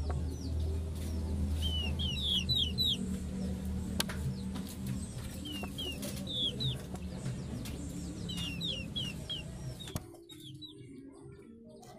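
Village chickens in a pen, with runs of three to five quick, high, falling chirps every couple of seconds over a low steady hum. About ten seconds in, the hum and most of the sound cut away.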